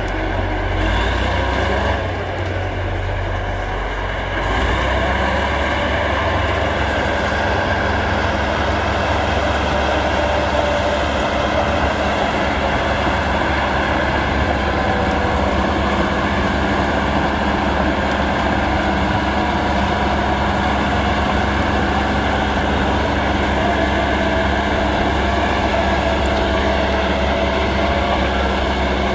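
Caterpillar D7 crawler dozer's diesel engine running steadily as the dozer works, pushing brush and snow with its blade. It grows louder about four and a half seconds in.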